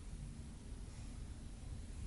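Quiet room tone: a steady low rumble with faint hiss, and no distinct sound standing out.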